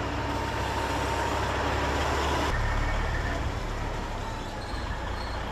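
Semi truck's diesel engine running steadily, a low hum.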